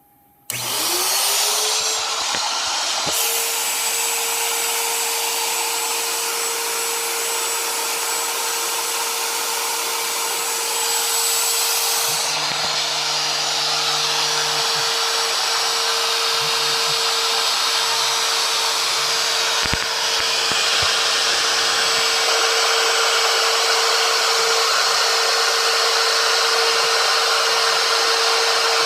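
Wood router mounted on a homemade CNC machine switched on and spinning up within about a second to a steady high whine, then running loud and steady at full speed. There is a single sharp click about 20 seconds in.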